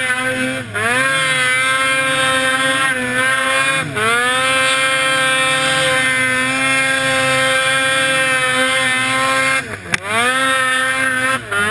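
Ski-Doo Summit X 154 snowmobile's two-stroke engine running at high revs under load through deep snow. The revs drop briefly about four seconds in and more deeply near the end, then climb straight back each time as the throttle is reapplied.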